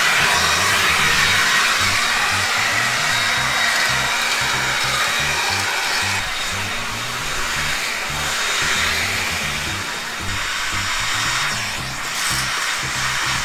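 Cordless electric leaf blower running: a steady rush of air with a faint high whine, rising and falling a little in level as it is swept across the paving. Background music with a low bass line plays underneath.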